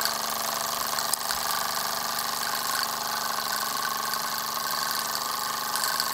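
Latimer L5 toy steam engine running steadily in steam, a fast even mechanical chatter over a continuous hiss. A small click about a second in.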